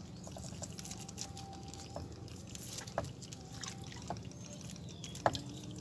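Water dripping and trickling, with scattered small clicks and two sharper knocks, one about three seconds in and a louder one near the end, over a steady low hum.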